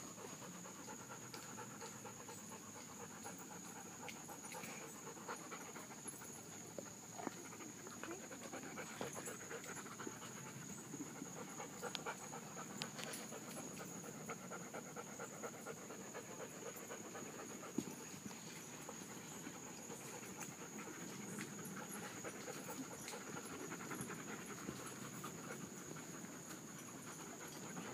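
Dogs panting, with a few faint clicks and a steady high-pitched whine in the background.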